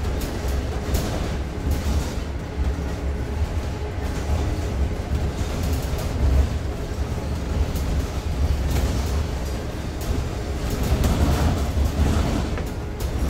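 Cabin noise of a Zhong Tong LCK6126EVG city bus under way: a steady low rumble from the road and running gear, with scattered rattles and knocks from the body and fittings. The rattles are busiest near the end.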